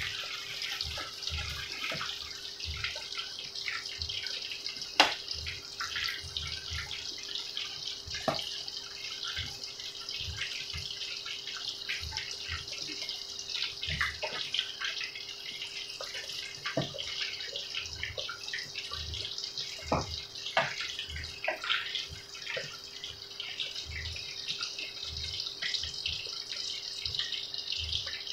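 Crumb-coated eggplant strips deep-frying in hot oil in a frying pan: a steady sizzle with scattered crackles and pops, one sharp pop about five seconds in.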